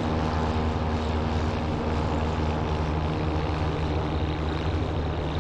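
Helicopter running with a steady drone of rotor and engine, even and unchanging throughout.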